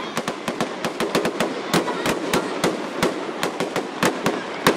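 Fireworks display: a rapid, irregular string of sharp bangs and pops from aerial shells bursting, about five reports a second.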